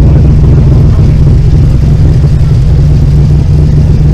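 Car engine running steadily at low revs close by, a low, even exhaust note with no revving.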